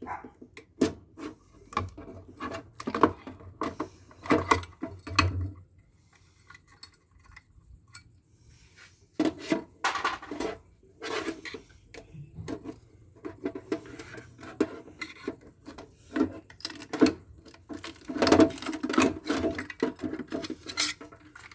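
Irregular clicking, knocking and metallic clatter of hand tools against metal parts while a stuck component is worked loose from a solar inverter being scrapped. There is a quieter pause of about three seconds about a quarter of the way in.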